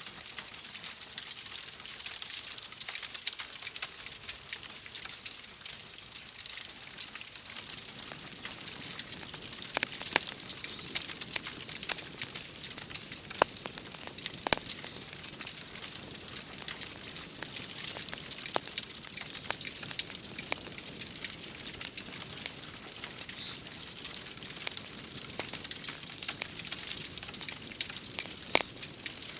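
Wood fire crackling in a fireplace, with scattered sharp pops over a steady hiss of rain. A few louder pops stand out about ten seconds in, around the middle and near the end.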